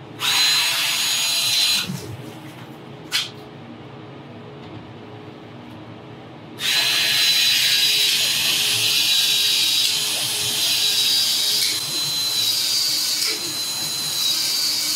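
Cordless Uponor ProPEX expansion tool running, its motor whining steadily as the head expands the end of a PEX pipe, ringed, for a fitting. It makes a short run of about a second and a half, then a brief click, then a long run starting a little under halfway in.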